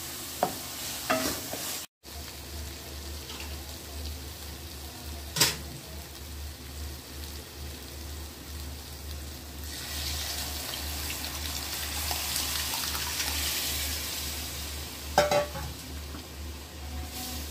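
Ground coconut-and-spice masala paste sizzling in oil in a steel kadai as it is stirred with a wooden spoon, with a few sharp knocks of the spoon against the pan, the loudest about five seconds in. The sizzle swells for a few seconds past the middle.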